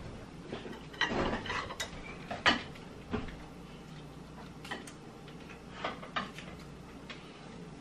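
Shell of a cooked lobster being cracked and pulled apart by hand: scattered sharp cracks and snaps, a crackly stretch about a second in and a loud sharp crack a little later.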